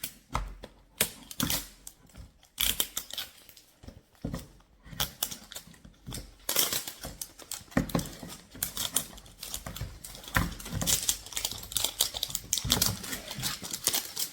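Toy packaging being peeled and pulled apart by hand: crinkling and crackling with many quick clicks and snaps, busier in the second half.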